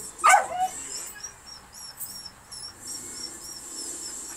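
A dog gives one short, sharp bark or yelp about a third of a second in, with a smaller yip right after. A run of faint, high chirps follows at about three a second for a couple of seconds.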